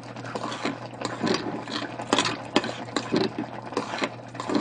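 Metal spoon stirring thick yam and shiitake rice porridge in a stainless-steel pot, clicking and scraping against the pot in quick irregular strokes.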